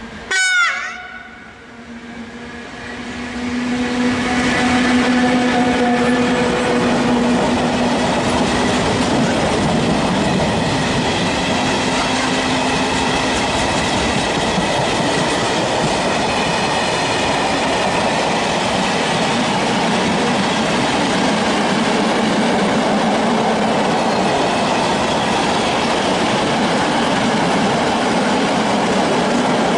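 A freight train's electric locomotive gives a short horn blast about half a second in, then passes with a steady hum. A long line of PKP Cargo hopper wagons follows, running past on the rails with a continuous loud rumble and wheel noise.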